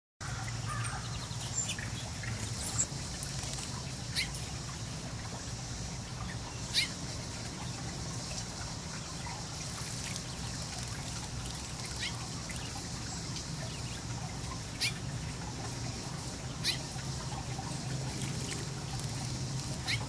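Shallow water trickling steadily over pebbles, with a low steady hum underneath. Short, high bird chips sound every couple of seconds.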